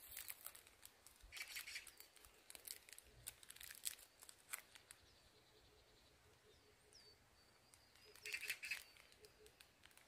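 Faint crinkling and tearing of a dog-treat wrapper being opened by hand, in a few short bursts. Faint bird chirps now and then.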